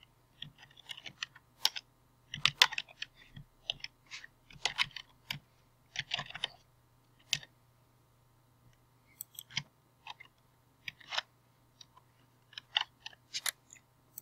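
Typing on a computer keyboard: irregular runs of keystrokes, with a pause of about a second and a half midway.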